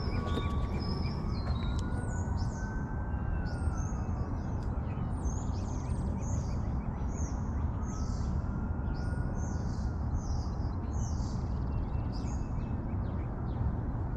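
A songbird repeating short high chirps about once a second, with a faint distant siren slowly rising and falling twice, over a steady low rumble.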